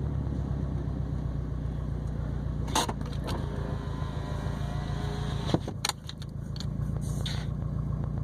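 Subaru WRX STI's turbocharged flat-four cruising at steady low revs, its exhaust droning through a non-resonated catback and catted downpipe. A few short knocks come in about three seconds in and again around five and a half to six seconds, and the drone briefly dips just after six seconds before coming back.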